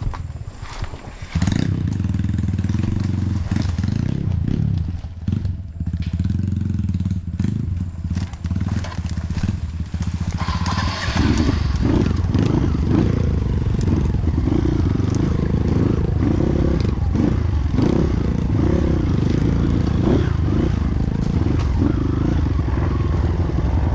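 Trail motorcycle engine running and being revved, the pitch rising and falling, then holding louder and steadier from about eleven seconds in.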